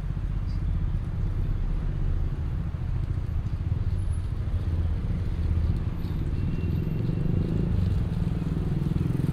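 City street ambience: a steady low rumble of motor traffic.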